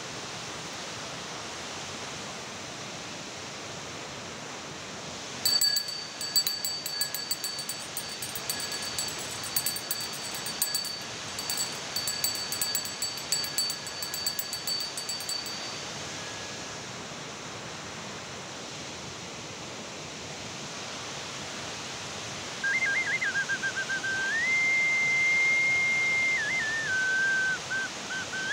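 Steady rushing noise throughout. From about five to sixteen seconds in comes a thin, steady high tone with fast clicking above it. In the last six seconds a whistle sounds, trilling and then holding and stepping between two pitches.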